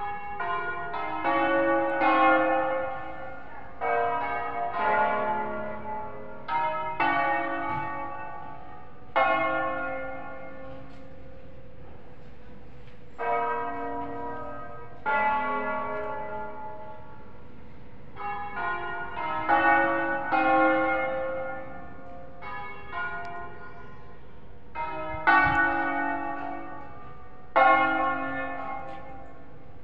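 The seven tuned church bells of Cremona Cathedral, in A-flat major, rung by hand in the Italian 'concerto' style. There are single strikes and quick runs of notes from different bells in irregular groups, and each note is left to ring and fade before the next.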